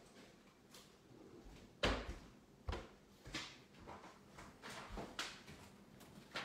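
A scattered series of short knocks and clacks, about eight of them, the loudest about two seconds in.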